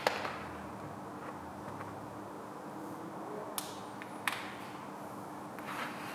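Stiff reflective vinyl wrap film crackling sharply twice and rustling briefly as the sheet is held and shifted against a brake caliper, over a faint steady hum.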